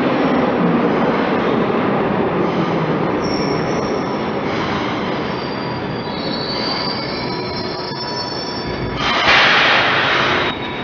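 1977 Metro-Cammell Glasgow Subway train coming into the platform, running with a steady rumble while its wheels squeal in thin, high wavering tones. About nine seconds in, a loud hiss lasts a second and a half and then cuts off suddenly.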